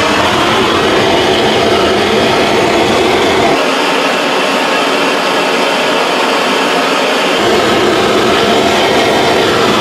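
Hose-fed gas blowtorch burning with a steady, loud rush of flame while heating brass parts to silver-soldering temperature. For a few seconds in the middle the deep part of the sound drops away, leaving the higher hiss.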